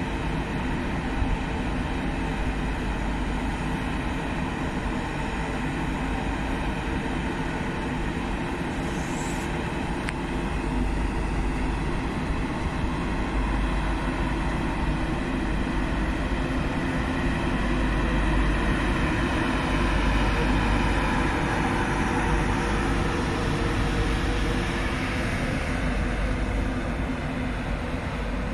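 LNER Class 91 electric locomotive powering away, its cooling fans running up: a steady whine that climbs slowly in pitch and grows louder towards the middle, then eases near the end.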